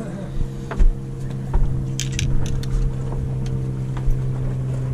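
Boat engine idling steadily, with a quick run of light metallic clicks from fishing tackle being handled about two seconds in.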